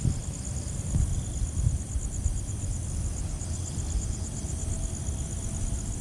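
Night insects chirping in a steady, high-pitched pulsed trill, several pulses a second, over a low rumble of handling noise on the phone microphone.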